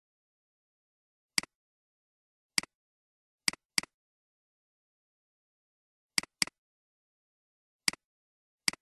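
Computer mouse clicks against silence, some single and two quick double-clicks, as files are opened in a code editor.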